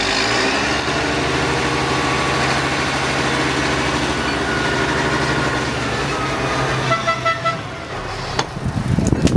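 Heavy vehicle engine running steadily under load, easing off near the end, with a brief high toot about seven seconds in and a few knocks just after.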